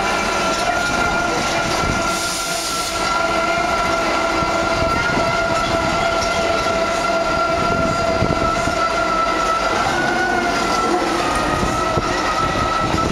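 Panama Canal electric towing locomotive (a "mule") running along its track on the lock wall, a steady whine from its drive over a rumble and rattle of wheels on rail. The whine's pitch shifts slightly about ten seconds in.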